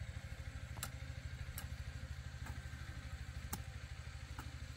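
A small engine running steadily with a low, fast, even throb. Sharp light ticks come through about once a second.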